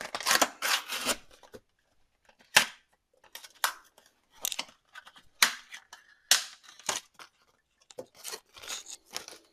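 Hands fitting an SSD and its cables inside a desktop PC case: irregular plastic and metal clicks, scrapes and rustles, with one sharp click about two and a half seconds in.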